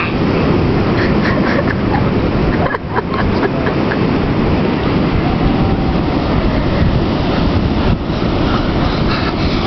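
Wind rumbling on the camera microphone over ocean surf: a loud, steady, rough noise that dips briefly about three seconds in.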